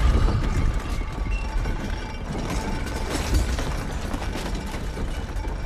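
Film sound design: a deep, steady low rumble under a continuous light rattling and clicking.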